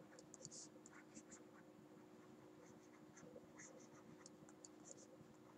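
Faint, scattered scratches and ticks of a stylus writing on a tablet, over a faint steady hum.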